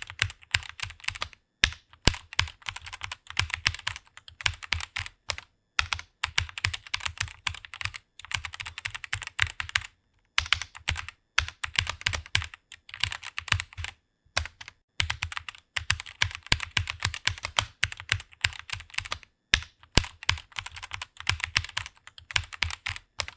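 Typing on a computer keyboard: quick runs of key clicks in bursts of a few seconds, with short pauses between them.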